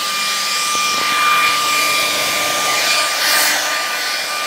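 Handheld hair dryer running steadily: a rushing hiss of blown air with a steady high whine from its motor and fan.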